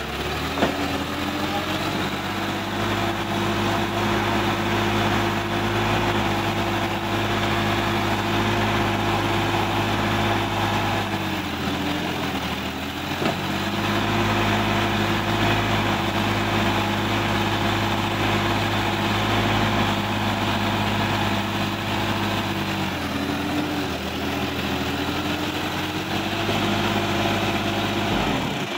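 Sonalika DI-50 RX tractor's diesel engine running at high revs under heavy load while pulling out of deep mud up a bank. Its pitch sags twice, near the middle and about four-fifths through, then climbs back.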